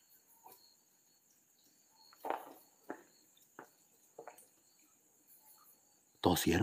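Crickets chirring steadily. In the middle come four short, sharp sounds in a row about half a second apart, the first the loudest, which the explorer takes for someone coughing.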